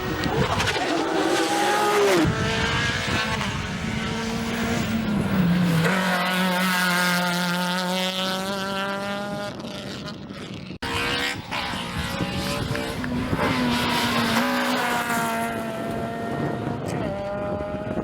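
Rally car engine revving hard at full throttle, its note rising and dropping with gear changes. The sound cuts briefly about eleven seconds in, and a revving engine picks up again.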